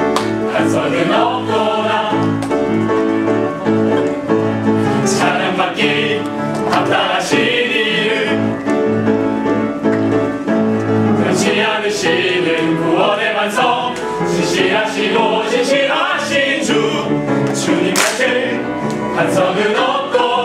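Mixed choir of men and women singing a gospel song in Korean over instrumental accompaniment.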